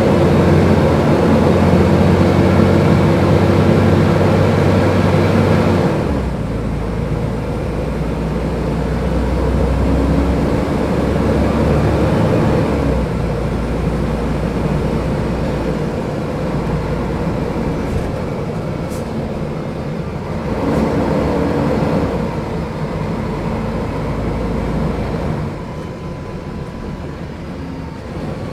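Mercedes-Benz O500UDA articulated bus's diesel engine running under load, then easing off about six seconds in and running on with its note swelling and dropping as the bus drives.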